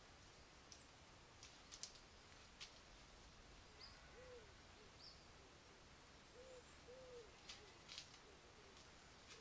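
Faint short hoot-like animal calls, each a brief rise and fall in pitch, heard about four seconds in and twice more a few seconds later over a quiet hiss. Scattered faint high ticks and clicks run between them.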